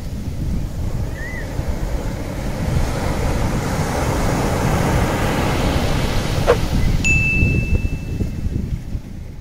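Ocean surf sound effect: a steady wash of breaking waves that swells and then fades toward the end. Two short high chirps come near the start, a quick falling whistle about six and a half seconds in, and then a bright chime that rings on a single high note for under two seconds.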